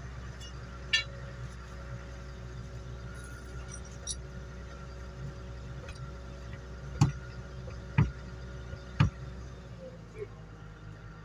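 Sharp metallic knocks during tyre work: a click about a second in, then three loud knocks a second apart near the end. A steady machine hum runs under them and stops shortly after the last knock.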